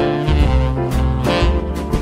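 Upbeat jazzy background music with brass and a steady beat.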